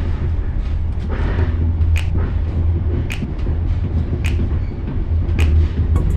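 Passenger train running: a steady low rumble with a sharp knock about once a second.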